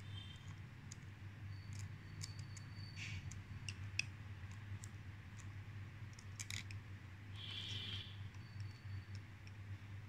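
Small precision screwdriver turning the retaining screw of an M.2 SSD into a laptop's motherboard standoff: faint scattered clicks and metal-on-metal scraping, with a couple of brief high squeaks.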